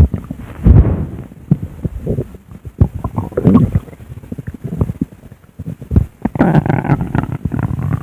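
Human stomach growling: uneven gurgles and low rumbles, one with a falling squeak about three and a half seconds in, then a longer stretch of gurgling over the last two seconds.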